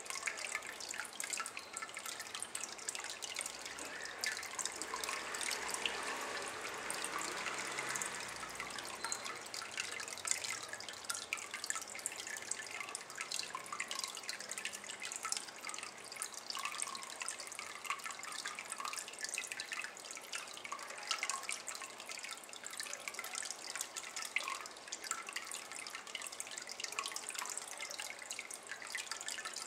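A thin stream of water dripping and trickling into a water-filled ceramic basin, a steady run of small irregular splashes.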